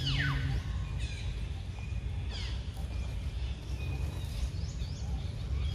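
Outdoor ambience: a continuous low rumble of wind on the microphone, with scattered high chirping calls, several sweeping quickly downward in pitch, near the start, about two and a half seconds in, and again near the end.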